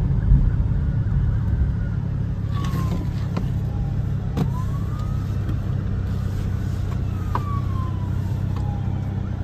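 Outdoor tornado warning siren, an STH-10, sounding faintly with its pitch sweeping slowly up and down several times, under a loud steady low rumble and a few sharp clicks.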